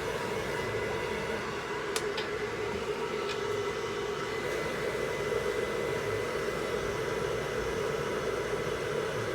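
Hair dryer blowing steadily, a constant rush of air with a faint high whine, and a couple of faint clicks about two seconds in.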